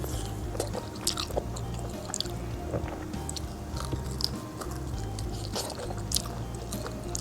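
Close-miked eating: biting and chewing, with many short, sharp crisp crackles, over background music.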